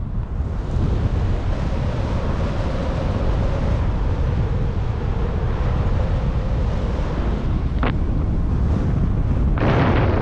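Steady wind rushing over the microphone in paraglider flight, with a louder gust near the end.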